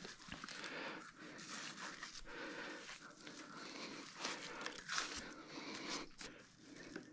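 Metal soil blocker being pushed and worked into damp potting mix with perlite, with hands packing the mix into it: faint, irregular gritty scraping and crunching of soil.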